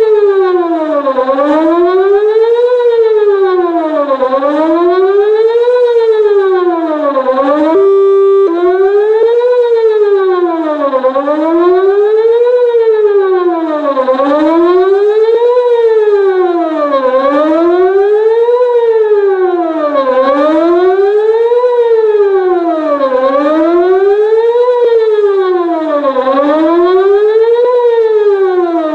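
Whelen WPS-2906 electronic warning siren sounding a European-style tone: a loud wail rising and falling in pitch about once every two seconds. About eight seconds in, it glitches, dropping briefly to a steady tone with a short break before the sweep resumes.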